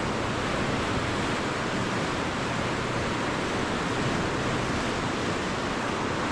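Steady, even rush of fast-flowing river water below a hydroelectric dam with its generators running, the high release keeping the current strong.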